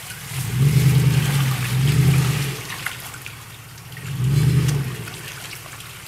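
Lifted SUV's engine revving in three short surges as it crawls through a muddy water hole, with mud and water churning under the tyres.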